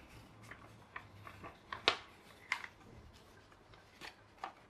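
A sheet of paper being folded and creased by hand, rustling and crackling in short scrapes, the loudest about two seconds in.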